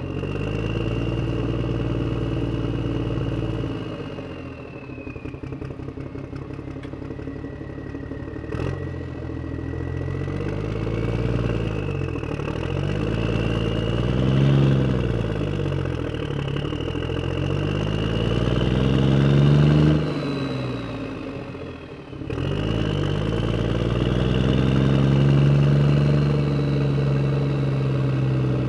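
Engine sound effect, repeatedly revving up and dropping back, with a faint high whine that wavers in pitch. Between two runs of revving it idles with a fast, even chug. About 22 seconds in it cuts off suddenly and starts again.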